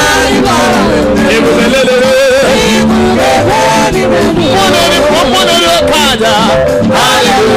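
Church worship music with a man's voice singing over it.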